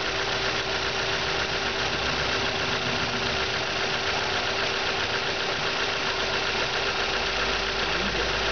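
Car engine idling steadily with an even hiss and a constant hum, running for a head-gasket combustion-leak test. The coolant bubbling and changing colour shows exhaust getting into the cooling system, which the mechanic takes for a failing head gasket.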